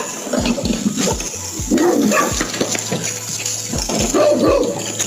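A dog making a series of short barks and vocal sounds, over background music with a low, regular beat.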